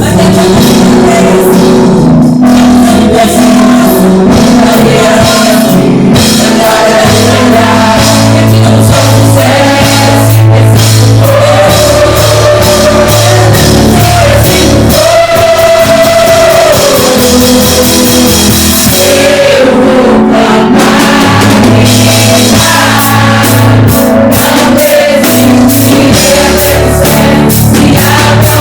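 Contemporary worship song played loud by a band, with a steady drum-kit beat, bass and guitar under singing.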